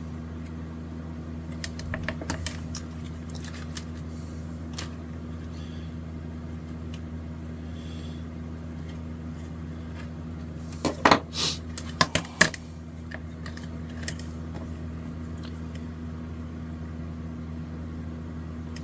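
Hands handling hookup wire and a copper-foil-shielded pickguard: scattered light clicks and rustles, with a short cluster of louder clicks and knocks about eleven to twelve seconds in, over a steady low hum.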